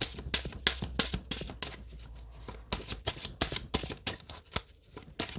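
Oracle cards being shuffled by hand: a quick, uneven string of crisp card flicks and slaps, a little sparser for a moment midway.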